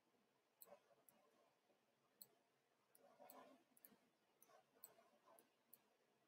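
Near silence: room tone with a few faint, irregularly spaced computer mouse clicks as letters are drawn stroke by stroke.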